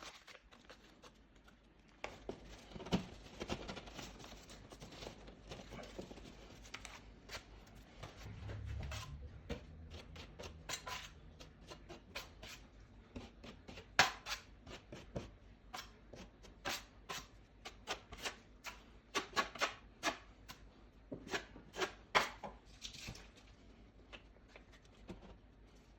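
Irregular clicks, taps and short scrapes of hand tools working on a drywall patch, with a brief low hum about eight seconds in.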